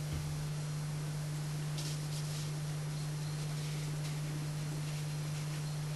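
A steady low hum over faint hiss, with a few soft swishes of a watercolour brush on paper about two seconds in.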